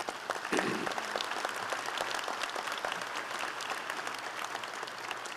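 Audience applauding: many hands clapping in a dense patter that gradually dies down.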